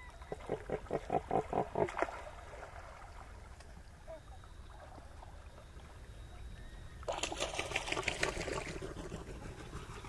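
Calls of Australian pelicans: a run of about ten quick pulsed notes, some six a second, in the first two seconds, then a denser, higher run of pulses from about seven to nine seconds in.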